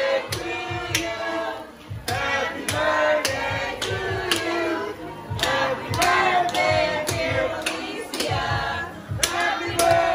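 A group of voices singing a birthday song together, with hand clapping in time at about two claps a second.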